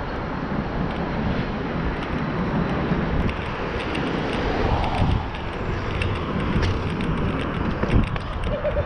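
Car traffic passing steadily on and below a road bridge, mixed with wind buffeting the microphone, with one sharp knock about eight seconds in.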